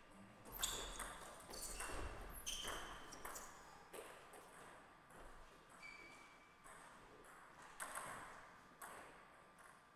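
Table tennis ball clicking off the bats and bouncing on the table: a string of sharp, irregularly spaced clicks, with a few short high squeaks mixed in.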